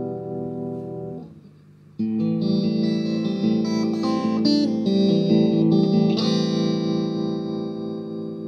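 Electric guitar played through a Moody Sounds tremolo pedal into a Marshall JVM combo amp. A chord rings with an evenly pulsing volume and fades out. After a brief gap a new chord sounds, followed by picked single notes, and a strum about six seconds in rings on.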